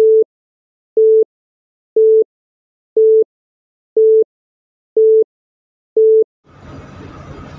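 Film-leader countdown sound effect: seven short beeps at one steady pitch, one each second, with dead silence between. Faint room noise comes back near the end.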